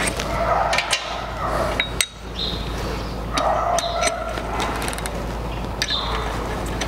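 Irregular sharp metal clinks and knocks of a socket wrench and extension bar against the connecting-rod cap bolts and crankcase of a Peugeot engine, as the rod bearing caps are loosened.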